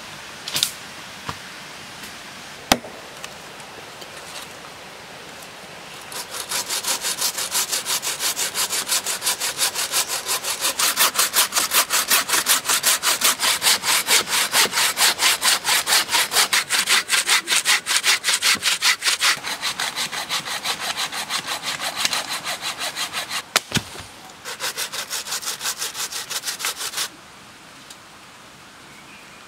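Hand saw cutting through a log with rapid, even back-and-forth strokes, starting about six seconds in. Near the end it pauses with a sharp knock, saws for a few more seconds, then stops.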